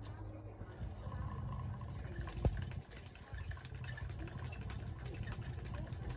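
Motorised butterfly-spinning cat toy running: a steady low motor hum, with one short knock about two and a half seconds in.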